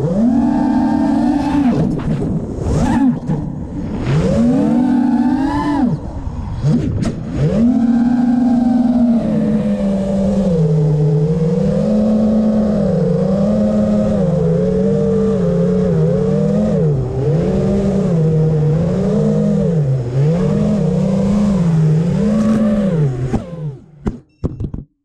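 Armattan Rooster FPV quadcopter's brushless motors and propellers whining, the pitch rising and falling over and over with throttle changes in flight. Near the end the quad lands and the motor whine cuts off suddenly, followed by a few light clicks.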